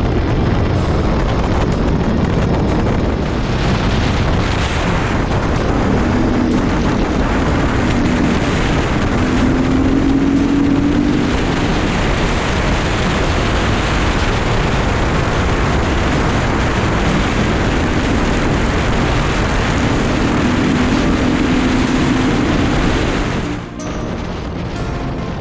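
Steady wind rush on the microphone of a moving motorcycle, with music underneath. Near the end it cuts off suddenly, leaving quieter music.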